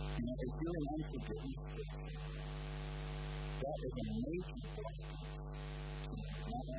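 Steady electrical mains hum with a row of even overtones, with faint murmured voice sounds three times.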